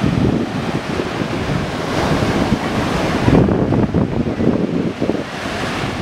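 Surf breaking and washing up a sandy beach, a steady rush of water with a swell about three seconds in, and wind buffeting the microphone.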